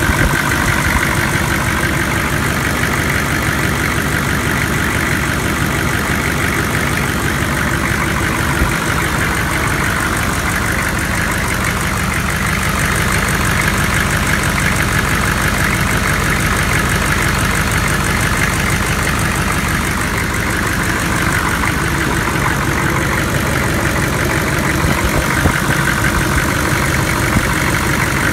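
GM 6.5 L turbo-diesel V8 running steadily at idle, heard close up in the open engine bay, with its belt-driven accessories turning.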